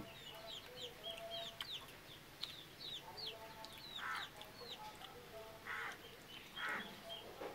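Domestic chickens calling: rapid, high, falling peeps, several a second, with a few louder, lower calls in the second half.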